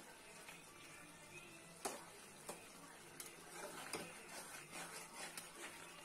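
Metal spatula scraping and clinking against a metal kadai as thick chicken curry is stirred: a couple of sharp taps about two seconds in, then a quicker run of taps and scrapes in the second half.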